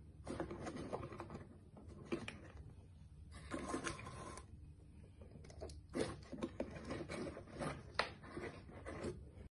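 Handling noise from hands moving small plastic toy figures on a cardboard set: soft rustling and scraping in irregular bunches, with a few sharp little clicks, the sharpest about six and eight seconds in.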